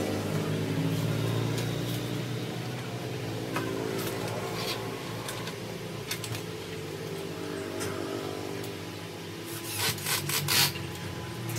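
Scraping strokes across a fibre door panel, like sanding or rasping, with a quick run of harder strokes about ten seconds in.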